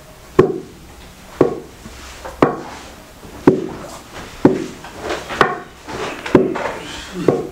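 Wooden pestle pounding in a mortar: a dull wooden thud about once a second, eight strokes in all.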